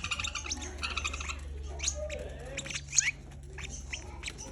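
Several caged pet birds chirping and calling at once: quick short chirps, a run of repeated pitched calls in the first second, and a sharp rising call about three seconds in, over a steady low hum.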